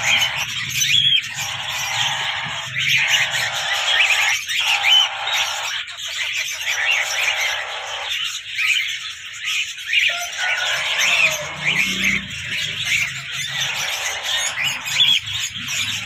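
Parakeet chicks squawking and chirping in a dense, continuous chatter of short overlapping calls.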